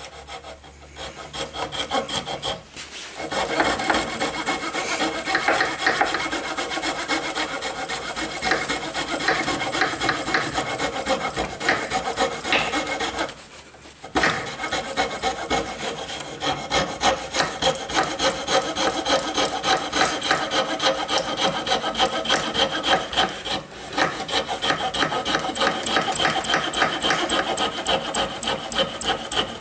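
Jeweler's saw, a small coping-style frame saw with a fine blade, cutting out the waste between dovetail cuts in a wooden board. It rasps in quick, short strokes, with brief pauses about two and a half seconds in and again about fourteen seconds in.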